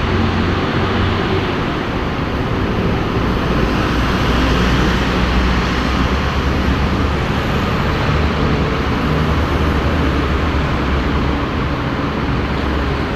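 Tour bus diesel engine running steadily under way, a low drone mixed with road noise.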